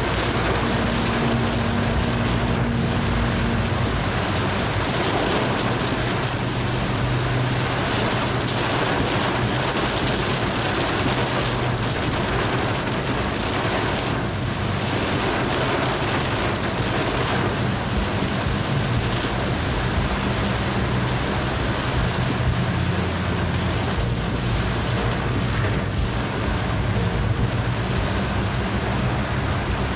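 Heavy tropical downpour pelting a moving car's windscreen and body, a dense steady hiss with no let-up. A low hum runs beneath it and shifts in pitch every few seconds.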